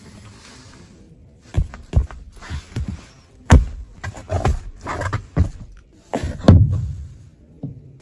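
Handling noise: irregular soft thumps and rubs as a hand touches and presses a car's interior trim and seats and the hand-held camera is moved about. The loudest thumps come about three and a half and six and a half seconds in.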